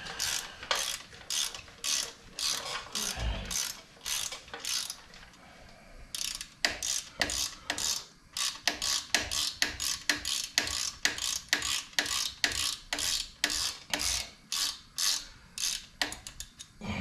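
Hand ratchet wrench clicking in short repeated strokes, about two to three a second, as a bolt is worked. The strokes pause briefly about five seconds in, then carry on.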